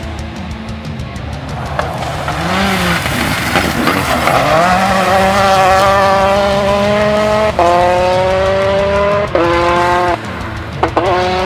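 Citroën DS3 R5 rally car at full throttle, its engine note climbing steadily through each gear. Sharp upshifts drop the pitch about two-thirds of the way through and twice more near the end, with background music underneath.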